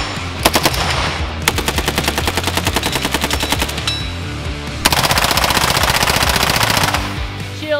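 Fully automatic gunfire: a few separate shots, then a long rapid burst from a short-barrelled AK-pattern rifle fitted with a blast diversion shield, and about a second later a second rapid burst from an MP5-style submachine gun. Background music plays underneath.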